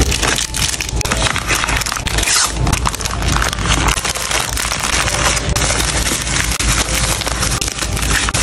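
Bubble wrap and a clear plastic sleeve crinkling and crackling as they are handled and wrapped around a small package.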